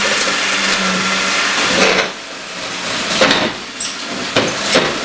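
Electric hot-cutting tool humming and hissing as it cuts into the foam of an insulated concrete form wall. About two seconds in the hum drops away, and quieter scraping with a few short knocks follows.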